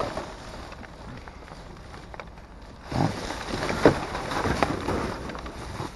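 Plastic bags and trash rustling and crinkling as they are shifted by hand, with a few sharp knocks. It is louder from about three seconds in.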